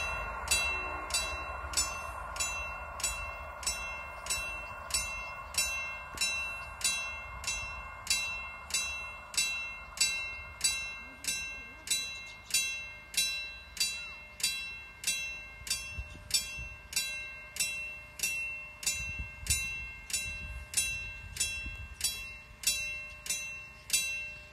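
Level-crossing warning bell striking steadily, about twice a second, with a ringing tone after each strike. Under it, the noise of a receding MAN train fades away over the first several seconds.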